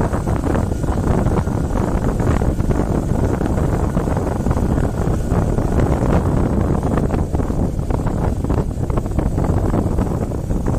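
Steady wind rushing over the microphone of a moving motorcycle, with the bike's running engine underneath.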